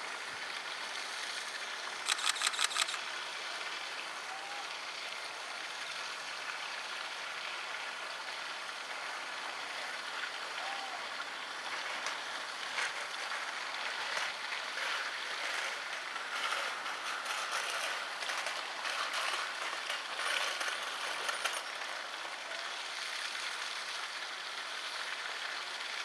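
Steady rush of flowing stream water. A quick run of about six sharp clicks comes about two seconds in, with scattered fainter ticks later.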